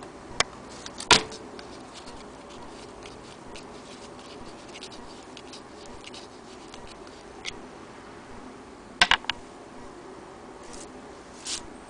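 A brass clock weight being handled, with a few sharp clicks and knocks of metal on a hard surface: the loudest comes about a second in, and a quick run of three about nine seconds in.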